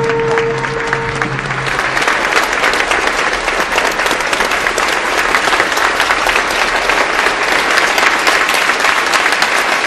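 Large crowd applauding, a dense steady clatter of many hands. In the first second or two a steady held tone fades out as the clapping builds.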